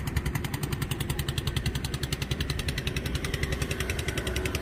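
A small engine running steadily with a fast, even chugging pulse, about ten beats a second.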